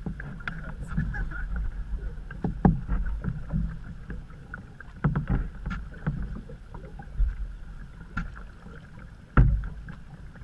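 Canoe paddles stroking through the water, with a handful of sharp knocks and splashes from the paddles every second or few.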